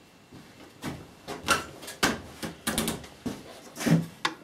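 A screwdriver and hands working at the metal casing of an old Makita belt sander: a string of irregular clicks, scrapes and knocks, the loudest a knock near the end.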